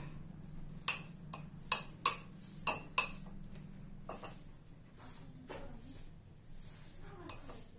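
Metal spoon clinking against a bowl while stirring and pressing down flattened rice (chura) soaked in hot milk. There are about six sharp clinks in the first three seconds, then a few softer ones.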